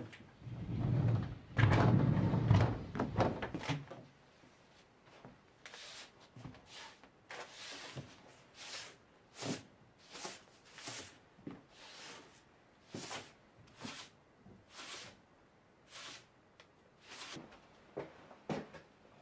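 A sliding door rumbles along its track with knocks for the first few seconds, then a straw broom sweeps a wooden floor in short, regular strokes, roughly one a second.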